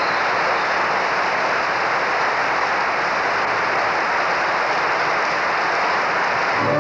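Audience applauding steadily, a dense, even wash of clapping.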